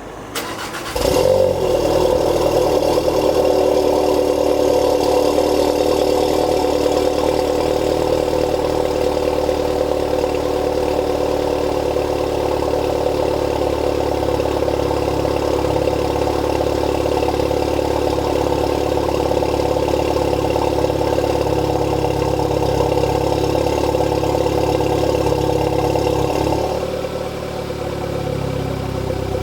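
Cold start of a stage 2 Skoda Octavia RS mk3's 2.0 TSI turbocharged four-cylinder through a full non-resonated Milltek exhaust with a sports cat: a brief crank, then the engine catches with a flare about a second in and holds a loud, steady fast idle. Near the end the cold-start idle drops to a lower, quieter note.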